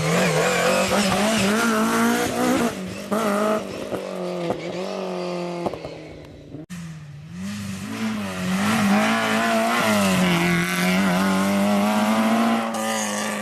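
Historic rally car engines revving hard under acceleration, the pitch climbing and falling with throttle and gear changes. The sound breaks off suddenly about halfway through and a second run of engine sound picks up.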